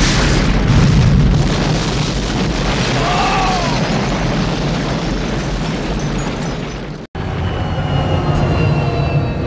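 Film sound effects of a large explosion: a dense, rumbling blast that surges at the start and rolls on for about seven seconds. After an abrupt cut, the steady drone of a large aircraft's engines in flight.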